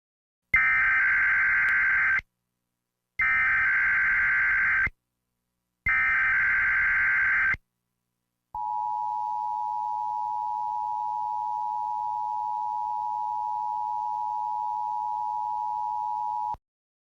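Emergency Alert System SAME header: three identical bursts of warbling data tones, each under two seconds with short silences between, followed by the EAS two-tone attention signal, a steady dual tone held for about eight seconds that cuts off abruptly. The sequence marks the start of a civil danger warning alert.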